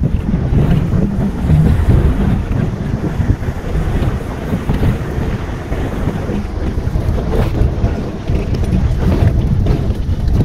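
Car cabin noise on a rough dirt mountain road: a steady low rumble of engine and tyres with the body jolting, and wind buffeting the phone's microphone.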